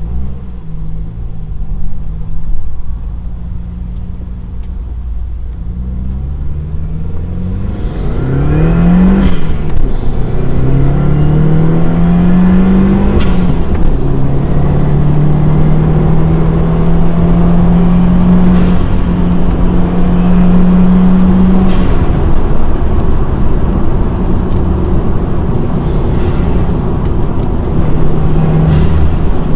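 2015 Subaru WRX's turbocharged 2.0-litre flat-four, breathing through a Cobb Big SF intake, heard from inside the car with the windows down as it accelerates through the gears. The engine note climbs, then drops sharply at each of three upshifts.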